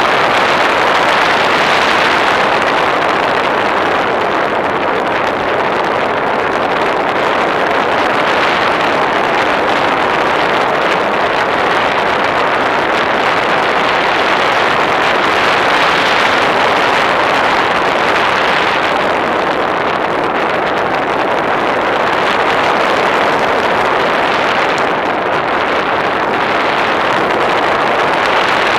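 Steady, loud rushing noise of an aircraft in flight, picked up by a camera mounted on the aircraft, swelling and easing slightly every few seconds.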